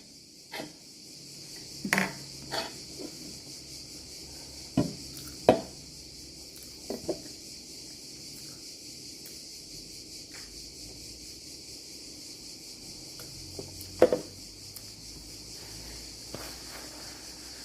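Steady high-pitched chirring of crickets, with a handful of scattered short clinks and knocks of cutlery on dishes, the loudest about five seconds and fourteen seconds in.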